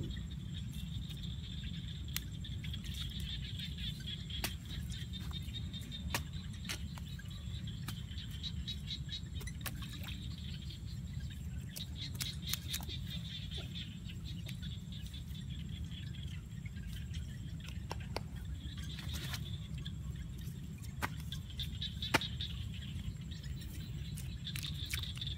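Insects trilling on and off in one high, even band over a steady low rumble, with scattered faint clicks.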